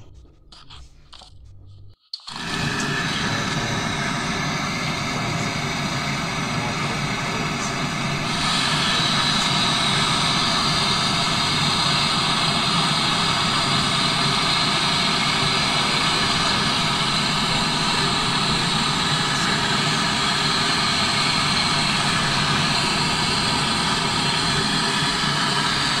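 Handheld gas torch lit about two seconds in and burning with a loud, steady hiss, which grows a little stronger about eight seconds in. It is heating a brass access-valve fitting onto a chest freezer compressor's copper process tube for brazing, with the valve core taken out so the heat won't melt its seal.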